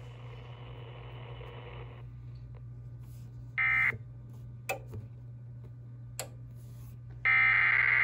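Faint radio hiss dies away after two seconds; a brief screech of digital data tones comes about three and a half seconds in, then a few faint clicks. Near the end an Emergency Alert System decoder starts sending its SAME header, a loud, buzzy burst of digital data tones that retransmits a severe thunderstorm warning.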